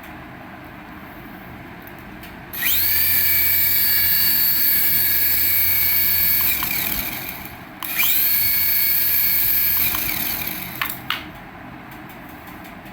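A small electric motor spinning up to a steady high whine, running about four seconds and winding down, then spinning up again for about two and a half seconds. A few light clicks follow near the end.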